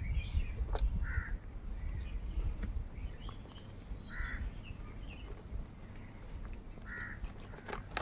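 House crows calling: three short caws about three seconds apart, with fainter calls and a few sharp clicks between, over a steady low rumble.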